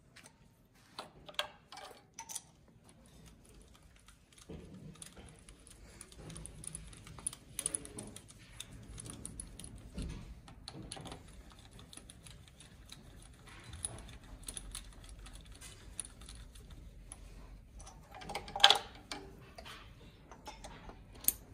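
Scattered small metal clicks and clinks as a compression tester's hose adapter is unscrewed and screwed into the glow-plug holes of a diesel engine's cylinder head during a compression test, with a few louder clinks near the end.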